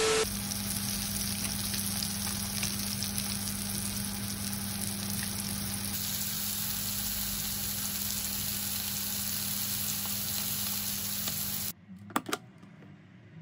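Brief burst of static hiss, then chicken breasts sizzling and crackling steadily as they sear in a non-stick frying pan. The frying stops suddenly near the end, and two sharp clicks follow as a rice cooker's lid button is pressed.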